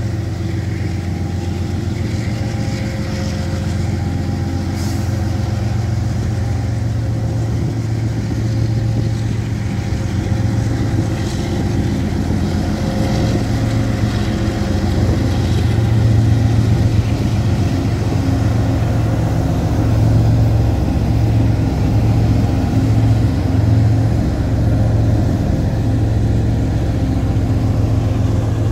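Canadian Pacific diesel freight locomotives passing close by, their engines running with a steady deep drone. The drone grows louder as the lead unit and then the second unit go past, loudest around the middle of the pass.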